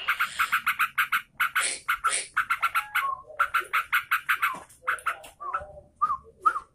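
Sooty-headed bulbul song: fast runs of short, chattering notes, about eight a second, broken by two brief pauses and ending in a few separate slurred notes.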